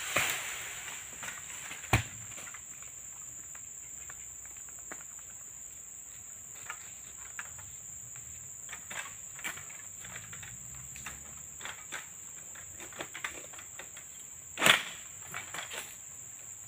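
Insects giving a steady high-pitched drone. A single sharp knock comes about two seconds in, and a louder, longer knock near the end.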